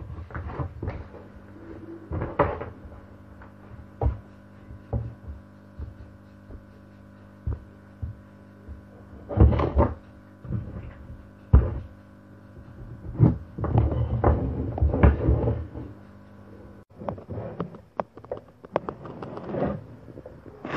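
Small wooden blocks and strips being picked up, set down and slid about on a wooden tabletop: scattered knocks and clacks of wood on wood, with a busier clatter of several knocks two thirds of the way in, over a steady low hum.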